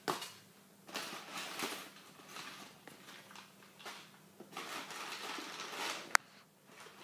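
Crumpled packing paper rustling and crinkling in bursts as it is pulled out of a foam-lined shipping box, with one sharp click about six seconds in.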